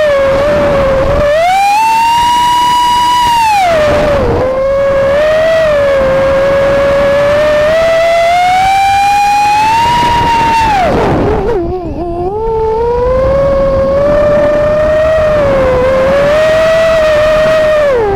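Brushless motors and propellers of a Vortex Pro FPV racing quadcopter, heard from its onboard camera: a loud whine whose pitch rises and falls with the throttle. It climbs and holds high about two seconds in, drops sharply near four seconds, climbs slowly again, drops deeply around eleven seconds, then runs fairly steady before dipping at the very end.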